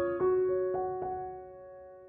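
Background piano music: a few soft notes struck in the first second, then left to ring and fade away.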